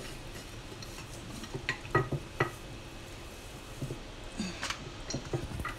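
Scattered light taps and knocks of hands and a wooden rolling pin working rolled-out pizza dough on a countertop, a few about two seconds in and a few more near the end.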